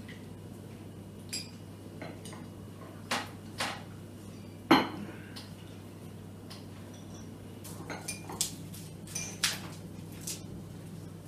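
Cutlery and crockery clinking at a meal: spoons and forks tapping on plates and tea cups in scattered sharp clicks, the loudest about halfway through and a quicker run of clinks near the end, over a low steady hum.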